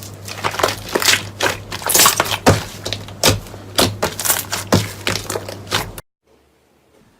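A crunchy material being crushed by hand, with dense, irregular crackling and sharp crunches that cut off suddenly about six seconds in.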